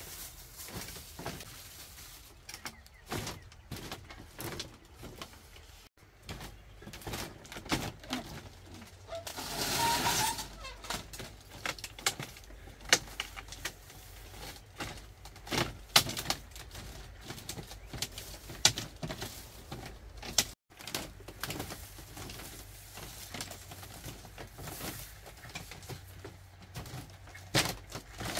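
Scattered creaks, taps and knocks of a bamboo slat floor as a person moves about barefoot and handles things, with a bird calling in the background.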